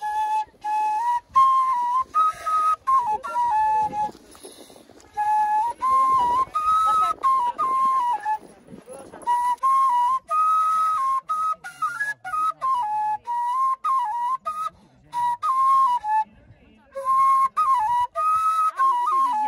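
Background music: a flute playing a simple melody that steps between a few notes, in short phrases separated by brief pauses.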